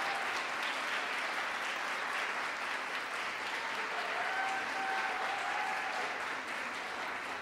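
Audience applauding, a dense steady clapping, with a single voice calling out briefly over it about four seconds in.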